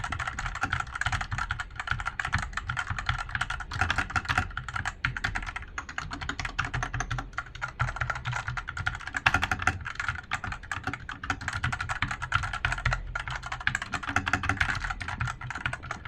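Fast, continuous typing on a Fantech Maxfit61 (MK-857) 60% mechanical keyboard fitted with Outemu Red linear switches: a dense run of keystroke clacks without a switch click, with a brief let-up about six seconds in.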